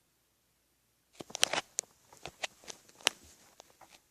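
Quiet for about a second, then a run of light, irregular clicks and taps with faint rustling.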